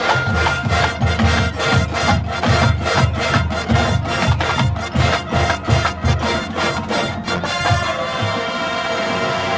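High school marching band playing, with drums and percussion hitting a steady driving beat under the winds. About eight seconds in the drumming drops away and the band holds sustained chords.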